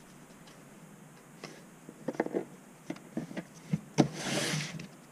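Pokémon trading cards being handled on a tabletop: a few soft taps and clicks as cards are set down, then a brief dry rustle of cards sliding together about four seconds in.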